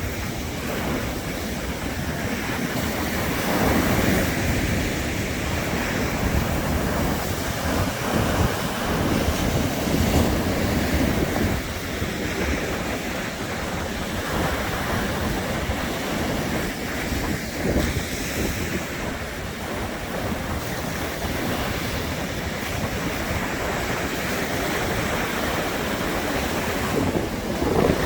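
Sea surf breaking and washing onto a beach in a continuous rush, swelling louder every few seconds as waves come in. Wind buffets the microphone with a low rumble.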